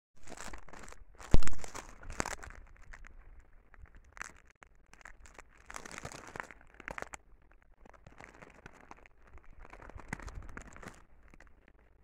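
Irregular crackling and rustling in short bursts, with one loud sharp crack about one and a half seconds in.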